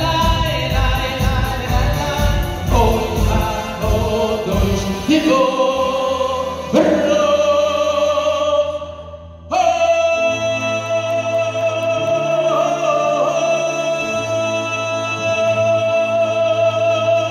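Male singer performing live with a band: a song with a steady drum beat and a moving sung melody, then, after a brief drop about nine seconds in, one long held sung note over sustained band chords.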